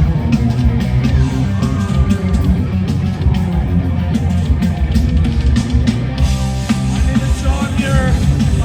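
Live rock band playing loud: electric guitar, bass and drums, driving without a break.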